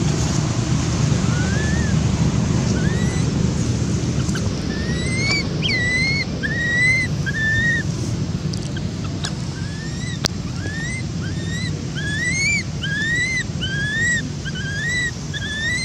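Infant long-tailed macaque crying: a series of high, arching whimpers, each rising then falling, coming about one or two a second from about five seconds in. Under it, a steady low rumble of wind on the microphone.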